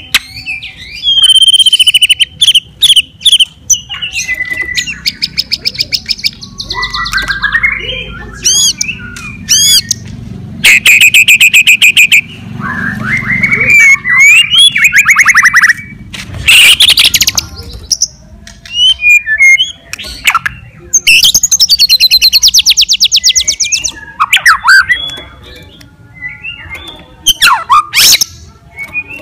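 White-rumped shama singing loudly without a break, in the excited, fighting-mood song called gacor. The song is a varied run of whistled phrases, fast rattling trills and harsh chattering calls, with only brief pauses between phrases.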